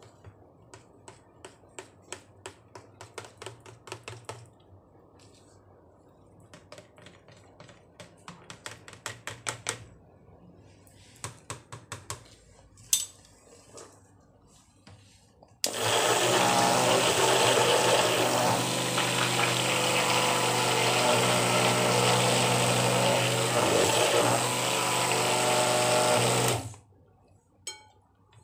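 Light clicks and knocks as a stick blender head is worked by hand in a plastic jug of cold process soap batter. About halfway through, the stick blender is switched on and runs steadily for about eleven seconds, blending tea tree essential oil into the batter, then cuts off suddenly.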